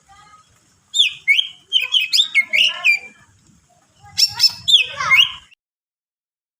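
Green leafbird (cucak ijo) singing: two bursts of rapid, chirpy phrases with quick up-and-down whistles, the first about a second in and the second about four seconds in, stopping about a second and a half later.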